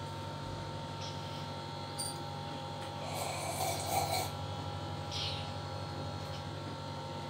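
A steady low electric buzz, with brief rustles about three seconds and five seconds in.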